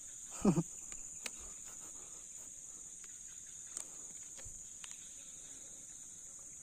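Steady, high-pitched chirring of insects, with a short vocal exclamation about half a second in and a few faint clicks.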